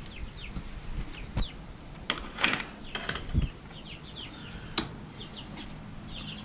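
Young chickens calling with short, high chirps again and again, over the knocks and clicks of a wooden coop door being handled and opened, with a sharp click a little before the end.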